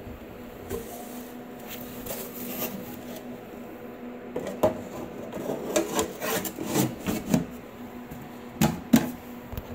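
Top cover of an amplifier case being handled and fitted onto the chassis: rubbing and scraping, then from about halfway a series of short knocks and clacks as it is pressed into place, over a faint steady hum.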